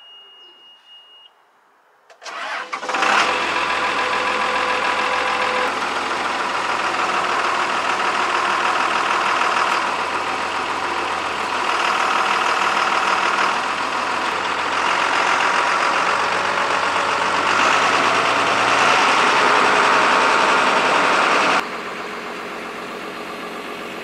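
JCB Fastrac tractor's diesel engine starting about two seconds in, then running loud and steady. Near the end the sound drops sharply to a quieter engine note.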